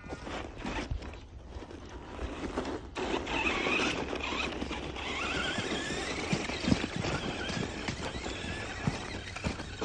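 Radio-controlled monster truck's motor whining as it drives through snow, its pitch gliding up and down with the throttle, with tyres churning the snow. It gets louder about three seconds in, with scattered light knocks.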